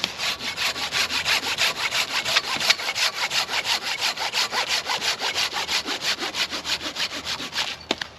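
Hand saw cutting wood in quick, even strokes, about five a second, stopping just before the end with a sharp click.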